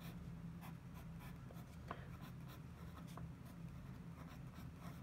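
Pen scratching across paper in short, irregular strokes as a chemical structure is drawn, over a steady low hum.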